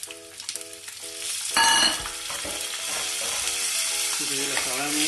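Whole coriander seeds tipped into hot oil in a frying pan: a sudden loud burst of sizzling about a second and a half in, settling into steady sizzling as the seeds fry.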